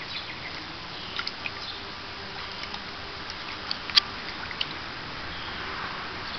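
Light splashing and dripping as a Savannah cat paws at shallow water in a plastic kiddie pool, with scattered small ticks and one sharper splash about four seconds in.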